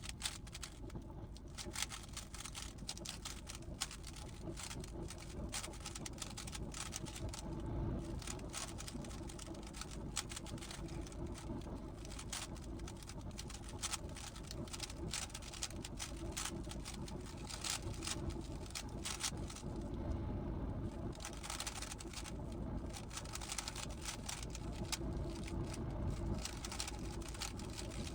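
GAN 15 speedcube being turned by hand: a dense, continuous run of quick plastic clicks as its layers are turned.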